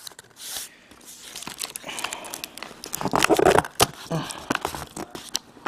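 A taped product box being worked open by hand: packaging crinkling and tearing, with many small clicks and scrapes and a louder stretch of handling about three seconds in.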